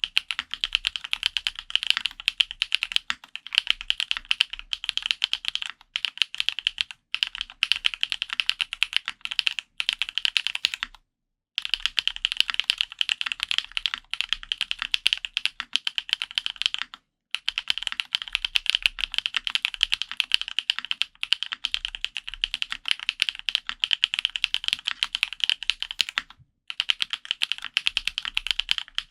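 Mechanical keyboard with Gateron Pure Berry switches in a polycarbonate F1-8X case, typed on quickly: dense, rapid key clacks in long runs with a few brief pauses.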